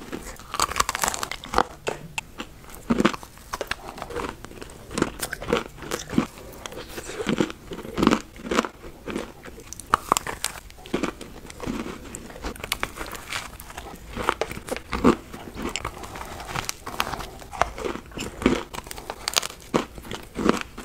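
Close-miked biting and chewing of iced sugar cookies: irregular crisp crunches, one after another, with chewing in between.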